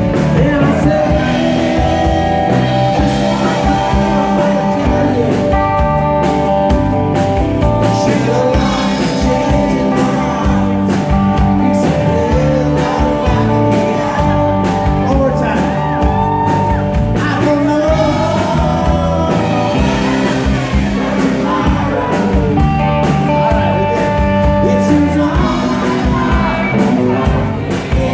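Live rock band playing loudly with a male lead vocalist singing: electric guitars, drums and keyboard through a PA, heard from among the crowd.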